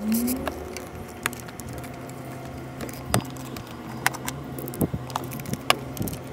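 Makita cordless impact driver briefly spinning up with a rising whine at the start as a coil-pack bracket stud is run out. Scattered metallic clicks and knocks follow as the tool is set down and the bracket is handled.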